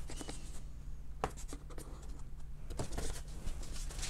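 Cardboard packaging being handled as a cardboard cover is lifted out of a box: soft scraping and rustling of card, with a sharp tap about a second in and a few more near three seconds in.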